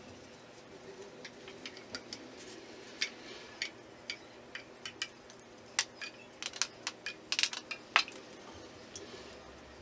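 A metal spoon clinking and scraping against a metal saucepan as tomato sauce is spooned out and spread over a lasagna layer. It comes as irregular sharp clicks and taps that grow thicker and louder in the second half, the loudest near the end.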